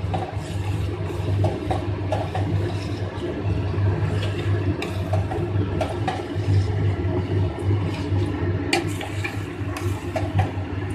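Spoon stirring vermicelli and milk in a steel pot, with faint scattered clicks of the spoon against the pot over a steady low rushing hum.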